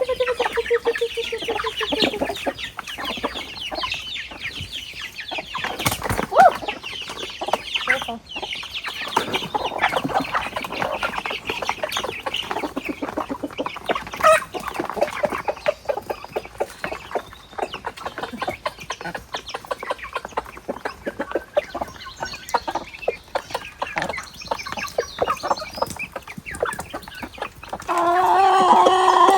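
Chickens clucking, many short calls overlapping steadily, with a louder, longer call near the end.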